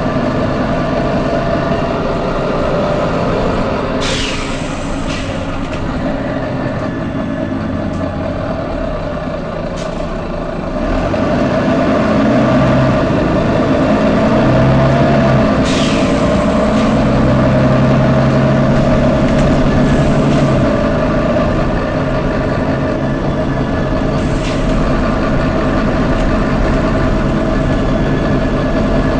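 Volvo B9TL double-decker bus running, its engine steady with a rise in pitch between about eleven and twenty seconds in, and a series of short sharp compressed-air hisses ('tsh'), the loudest about four and sixteen seconds in with fainter ones around five, ten, twenty and twenty-four seconds.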